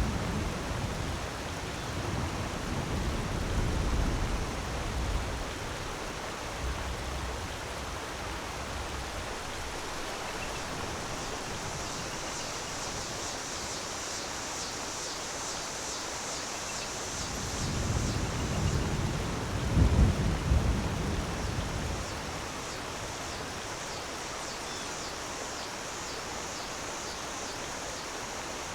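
Waterfall: a steady rush of falling water, with deep rumbling swells in the first few seconds and again about eighteen to twenty-one seconds in. A brighter high hiss joins it from about eleven seconds in.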